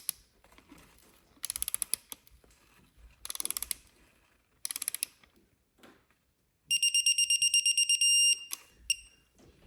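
Ratcheting torque wrench clicking in four short bursts as a bolt is run down. A digital torque wrench then beeps rapidly for about a second and a half, the signal that the 10 Nm target torque is reached, followed by one short beep.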